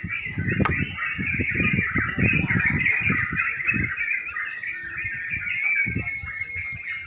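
Many caged crucuk songbirds singing at once in a dense, continuous chorus of chirps and quick falling whistles. Low irregular thuds and rumble run underneath.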